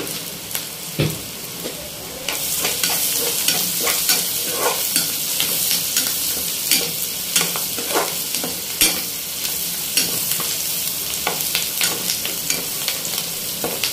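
Sliced onions, green chillies and curry leaves sizzling in hot oil in a pan while a spatula stirs them, with frequent irregular scrapes and knocks against the pan. The sizzle gets louder about two seconds in, once the stirring gets going.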